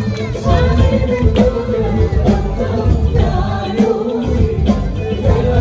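Live Arabic pop song: a band with percussion plays a steady beat while singing carries the melody.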